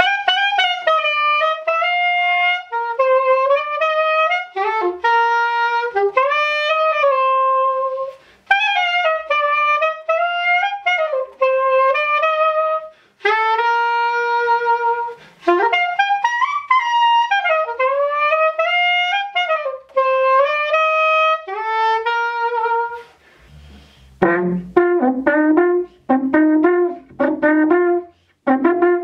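Soprano saxophone playing a solo melody in phrases, sliding between notes. About 24 seconds in, an alphorn takes over with quick, short repeated notes in a lower register.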